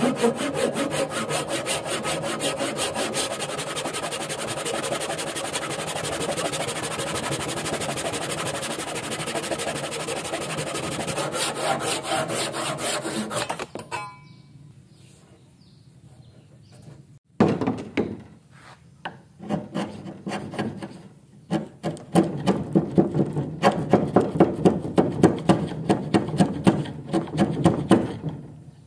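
Hand saw cutting wood with quick, even back-and-forth strokes. The sawing stops about halfway, comes back in short spurts, then runs steadily again at about three or four strokes a second near the end.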